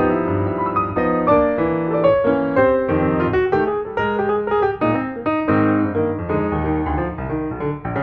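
Background music: piano playing a flowing run of notes.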